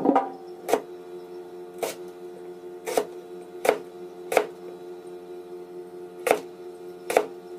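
A lignum vitae (bakaut) wooden knife chopping through a cucumber onto a wooden cutting board. There are about seven sharp knocks, one per slice, at uneven intervals.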